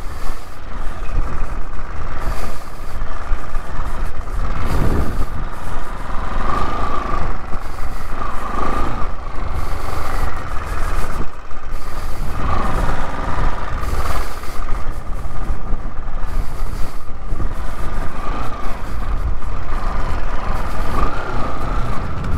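Motorcycle engine running while riding, its pitch rising and falling, under a heavy low rumble of wind on the microphone.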